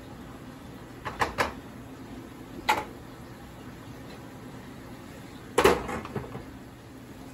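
Cookware knocks: a spatula tapped twice against a stainless steel pan, then a single knock as it is set down, then a pot lid clanks onto the pan and settles with a couple of smaller clinks. A faint steady hiss runs underneath.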